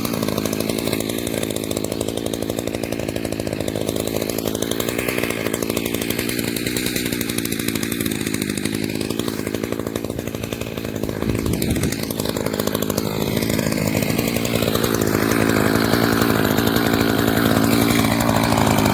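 A new Timberwolf 590 gasoline chainsaw running steadily, getting louder about three-quarters of the way through.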